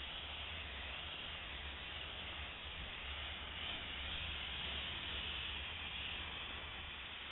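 Optima DMF steam cleaner's wand spraying steam onto a car's hood, a steady hiss over a steady low hum.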